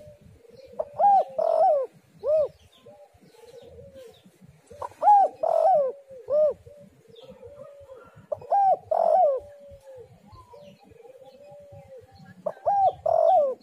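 Spotted dove (tekukur) cooing, a loud phrase of a few quick coos repeated four times about every four seconds. Fainter, drawn-out coos run between the phrases.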